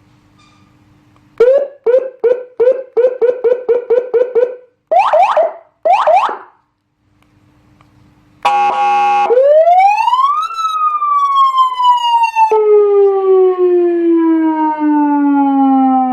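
Electronic siren through a 200-watt siren speaker cycling through its tones: a run of rapid chirps, about seven a second, then two short swoops, a brief buzzing horn blast, and a rise followed by a long, slow falling wail that steps down partway.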